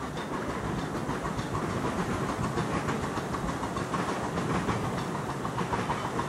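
Small hand-pushed railway turntable turning with a miniature locomotive on it: a steady metallic rumble with rapid small clicks as its wheels roll round the ring rail.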